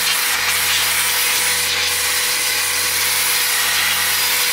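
A rechargeable battery-operated electric air blower running steadily at one constant pitch: a motor-driven fan whirring and a rush of air blowing across a keyboard tray. It sounds like a vacuum cleaner.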